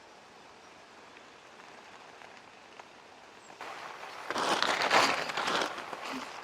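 Rain on a tent: a faint steady hiss, then from about four seconds in a much louder, irregular crackling patter close to the microphone.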